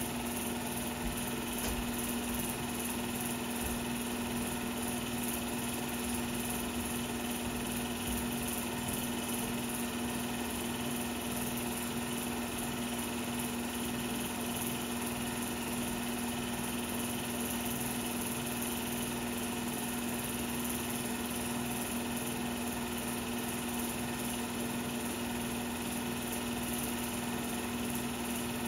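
16mm film projector running: a steady mechanical whir with a constant hum that does not change.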